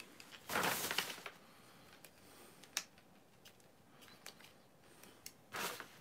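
Handling noises from a plastic F-14 Tomcat Transformers figure being twisted into shape: small plastic clicks, one sharper click near the middle, and two short bursts of rustling noise, one about half a second in and one near the end.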